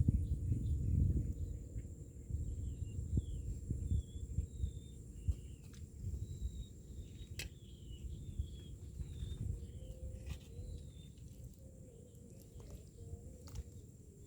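Small birds chirping in a run of short falling notes, over a low rumble of wind on the microphone that is strongest at the start, with a few sharp clicks.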